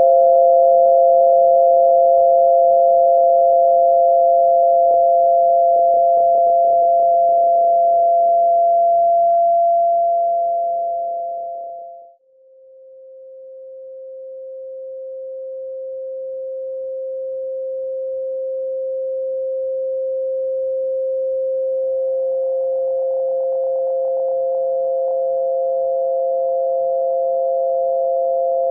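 Tinnitus-masking sound of two steady pure sine tones, one a little higher than the other, over a faint hiss. The tones fade away to almost nothing about twelve seconds in. The lower tone then swells back alone, and the higher tone rejoins about ten seconds later.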